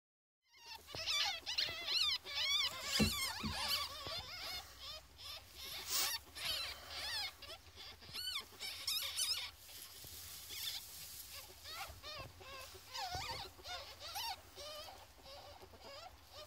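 Fourteen-day-old ferret kits squeaking: many short, high, wavering cries, thickest and loudest in the first half, among scattered clicks and rustles.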